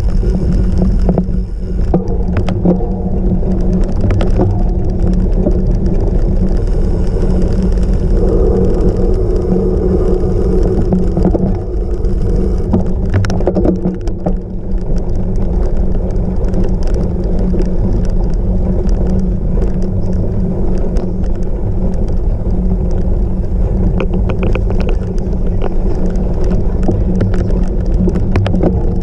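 Cyclocross bike being ridden over rough off-road ground: a loud, steady low rumble with frequent rattles and knocks from the bumps.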